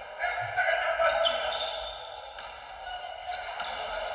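Basketball being dribbled on a hardwood gym floor, with short sharp bounces and players' voices echoing in the hall.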